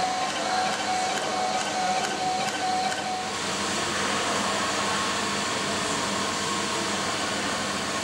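Benchtop tube-cutting machine running: a steady motor whine with light clicks as it feeds and cuts the tubing. About three seconds in the clicks stop and the tone shifts slightly higher, leaving a steady hum and hiss.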